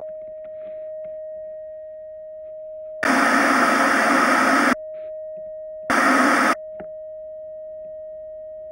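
A steady high electronic tone, broken twice by loud bursts of static hiss, the first about a second and a half long, the second about half a second, each starting and stopping abruptly.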